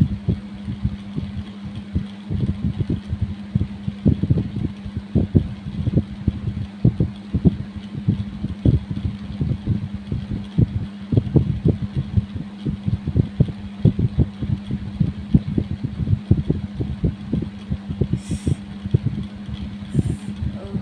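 Kerokan scraping strokes on the skin of the chest, repeated at an uneven two to three short strokes a second, over a steady low hum.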